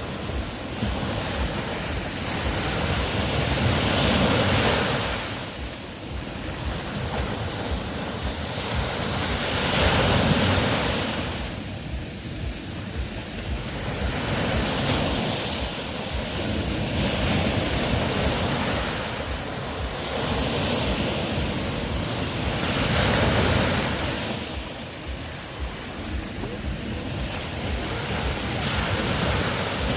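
Ocean waves breaking and washing ashore. The surf swells and ebbs about every six seconds.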